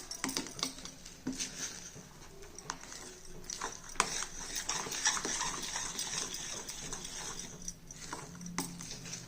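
Metal spatula scraping and stirring a thick banana and jaggery barfi mixture in a kadhai: irregular scrapes and clicks against the pan.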